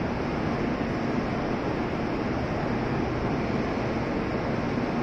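Steady hum and rush of a stopped N700-series Shinkansen train standing at a station platform, its equipment running while it waits to depart.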